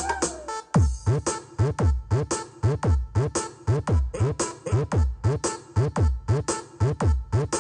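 Electronic dance music played through a mobile sound system's bank of twelve subwoofers: a held low bass note gives way, under a second in, to a fast steady beat of heavy kick drums that each drop in pitch.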